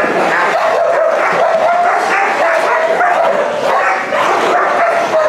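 Samoyeds fighting: a loud, unbroken din of barking and yelping, with a high whining note held through it.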